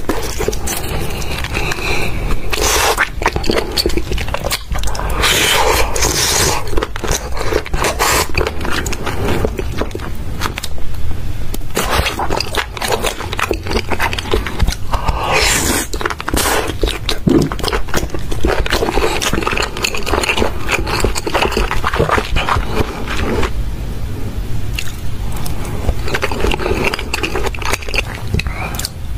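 Close-miked chewing and biting of an octopus tentacle: wet mouth sounds with many short clicks in quick, uneven succession.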